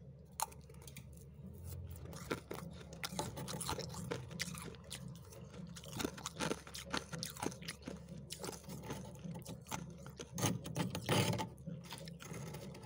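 Freezer frost and ice crunching in a dense run of short, sharp crunches, with a louder cluster about ten to eleven seconds in.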